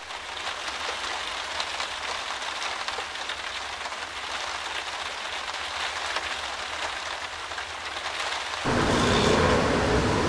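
Steady rain falling on hard ground, an even hiss; about eight and a half seconds in it gives way to a louder, fuller noise.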